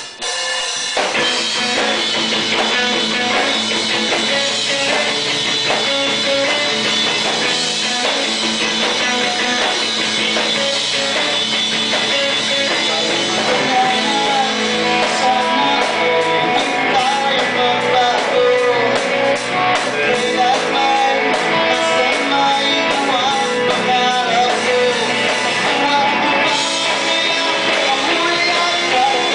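Live rock band playing electric guitar and drum kit, loud and continuous, the song starting about a second in.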